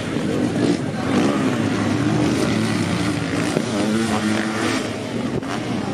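Motocross engines racing on the track, a solo bike and a sidecar outfit among them, their pitch rising and falling as they work the throttle.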